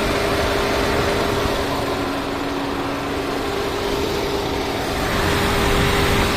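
2014 Ford Explorer running steadily after a crank-no-start repair: a constant drone of engine and climate-control blower with a faint steady hum, slightly louder about five seconds in.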